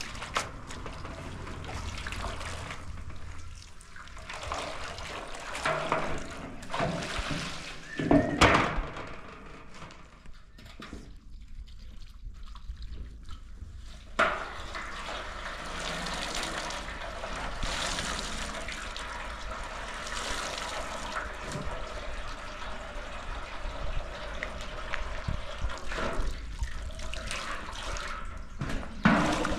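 Laundry being washed by hand in a metal basin: water sloshing and splashing as garments are lifted, wrung and plunged back in, with water dripping into the basin. The loudest splash comes about eight seconds in, and there is a quieter lull a few seconds later.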